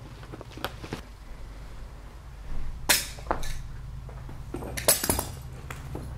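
Footsteps on a debris-strewn floor: a few scattered sharp crunches and clicks, loudest about three seconds in and again around five seconds in, over a steady low hum.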